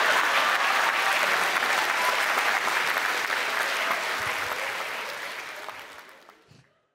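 Stand-up comedy audience applauding after a punchline, fading out near the end.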